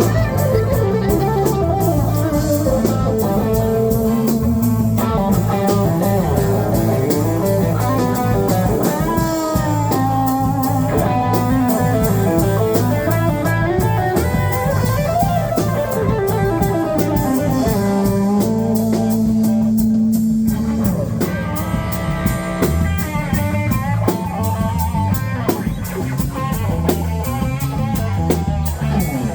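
A live rock band playing: electric guitar lines over a drum kit, loud and continuous.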